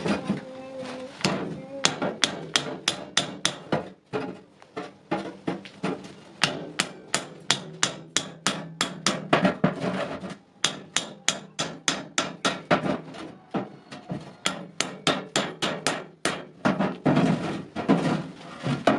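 Blacksmith's hammer striking iron in a fast, steady run of blows, about three to four a second, with two brief pauses.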